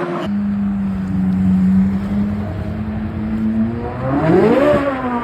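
2023 Corvette Z06's 5.5-litre flat-plane-crank V8 running. It holds a steady note, then revs up and drops back about four seconds in, and begins to climb again near the end.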